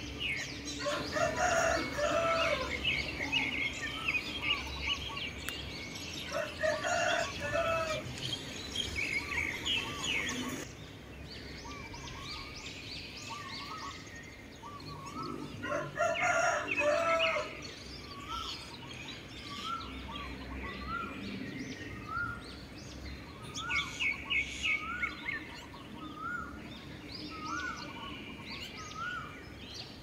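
Roosters crowing, three crows of about two seconds each, near the start, about seven seconds in and about sixteen seconds in, over continual chirping of small birds. In the second half one bird repeats a short rising note about once a second.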